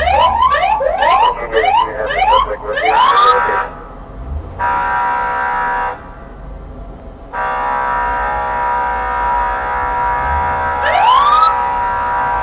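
Police car's electronic siren, loud: a fast yelp of short rising sweeps, about three a second, for the first few seconds, then a steady blaring horn tone that stops briefly and resumes, with a single rising whoop near the end.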